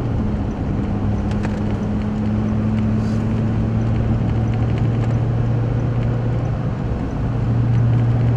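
Steady low drone of a vehicle's engine and road noise heard from inside the car, swelling a little near the end.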